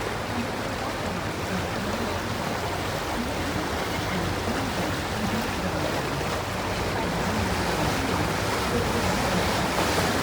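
Steady rushing of water and wind around a moving river tour boat, with a low hum underneath, growing slightly louder toward the end.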